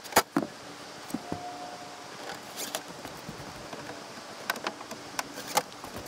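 Cordless drill/driver running briefly about a second in while screws are fitted to a plastic rooftop RV air-conditioner shroud, with scattered light clicks and taps from handling the screws, drill and cover.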